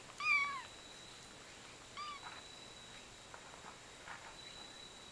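Two-week-old kitten mewing. There is one high-pitched mew, about half a second long, that drops in pitch at the end, then a short mew about two seconds in.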